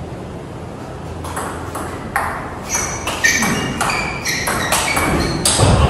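Table tennis rally: the celluloid-type ball clicking off rubber-faced bats and bouncing on the table in a quick back-and-forth, starting about a second in at roughly two to three hits a second.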